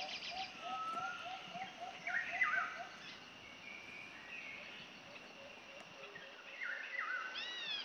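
Birds chirping and calling: a rapid run of short low notes, about four a second, for the first three seconds, then higher chirps that slide down in pitch about two seconds in and again near the end.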